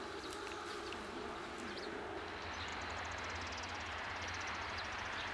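Lakeside outdoor ambience: scattered short bird chirps over a steady low background rumble, with a rapid, high-pitched ticking trill coming in about halfway through.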